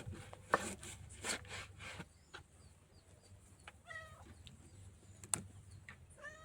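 A chicken clucking in two short pitched calls, about four seconds in and again near the end, with a few sharp knocks earlier.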